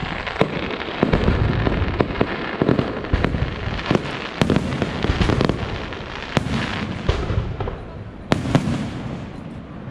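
Aerial firework shells bursting overhead: an irregular run of sharp bangs, with the loudest cracks about half a second, two seconds, four and a half seconds, six and a half seconds and eight and a half seconds in, over a continuous crackling rumble.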